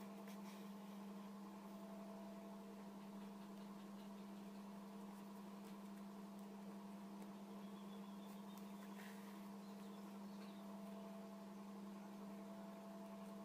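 Near silence with a steady low hum and a few faint clicks.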